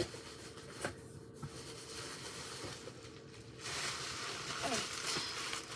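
Plastic bubble wrap and packaging rustling and crinkling as a box is unpacked by hand, with a couple of sharp clicks near the start and louder rustling in the second half.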